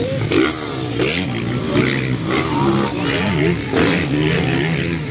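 Several motocross bikes' engines revving hard and backing off as they race over the jumps, their overlapping pitches rising and falling.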